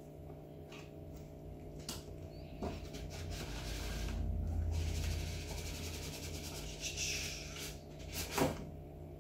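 Thin cardboard outer sleeve of a boxed graphics card being slid off the inner box: a long rubbing scrape of card on card from about three seconds in to about eight, with a few light taps and knocks of handling before and after.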